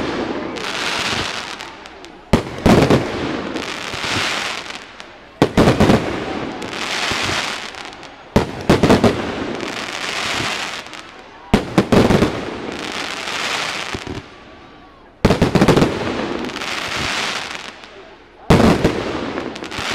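Aerial fireworks display: six shells burst about one every three seconds, each sharp bang followed by a long crackling fizz that dies away as the glittering stars fall.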